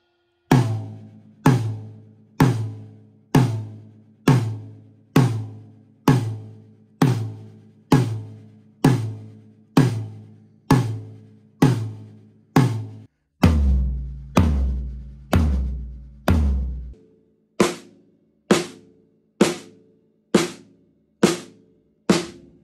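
Single drum hits about one a second, a drummer striking one drum over and over so the studio can set its sound: first a rack tom about fourteen times, then four deeper hits that ring longer, then a run of shorter, higher hits.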